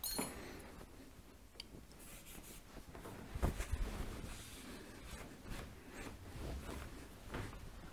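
Cloth rag wiping and rubbing over the lathe's metal cross slide and scale cover: faint, irregular scuffing strokes, with a light bump about three and a half seconds in.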